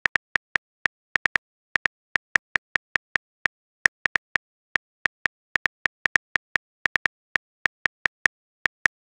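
On-screen phone keyboard click sounds, one short click per letter typed, in an uneven typing rhythm of about four or five clicks a second.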